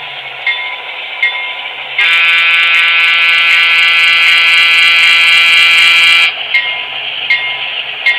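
Electronic diesel-locomotive sound effects from an HO-scale model train: the locomotive bell rings steadily, about one strike every three-quarters of a second. A loud, steady multi-chime air horn blast of about four seconds comes in a couple of seconds in and cuts off abruptly.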